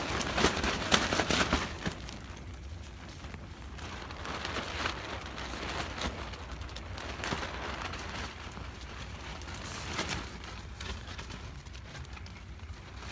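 Wind buffeting a tent: irregular rustling and crackling of the flapping fabric over a constant low rumble, busiest in the first two seconds.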